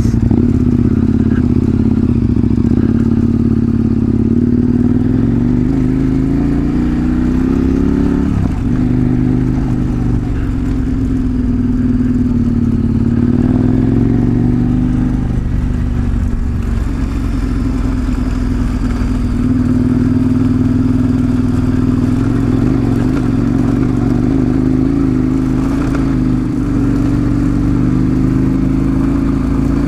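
Big twin-cylinder adventure motorcycle engine running under way, heard from on the bike. Its pitch climbs and drops sharply twice in the first half, then holds fairly steady.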